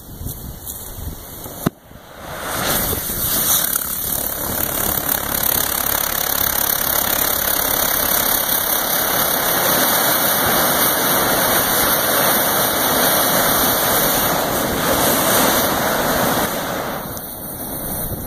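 Scrap APCP (ammonium perchlorate composite propellant) burning unconfined on the ground: a sharp click about two seconds in, then the propellant catches and burns with a loud, steady rushing hiss for about fifteen seconds, easing slightly near the end.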